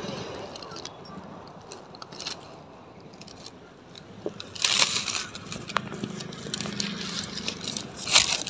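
Chrysanthemum leaves rustling, with short crackles as fingers pinch off the soft shoot tips. The loudest bursts come about halfway through and again near the end.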